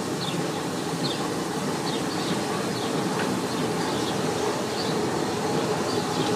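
Vulcan RM 50 railcar's diesel engine idling steadily, a low even hum, with short bird chirps over it.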